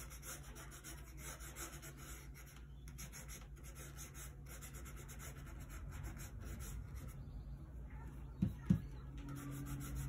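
Flat bristle brush scrubbing oil paint onto a gessoed panel: a run of dry, scratchy rubbing strokes, with two short thumps close together near the end.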